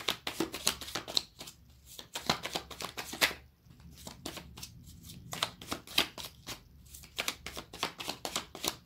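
A stack of paper cards being shuffled and handled by hand: quick papery flicks and snaps in several runs, with short pauses between them.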